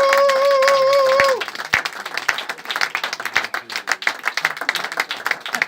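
Audience applauding, with one loud held cheer over the first second or so.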